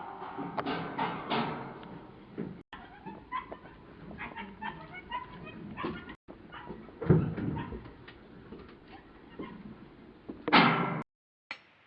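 A dog whimpering with short, high yips, among scattered knocks and bumps.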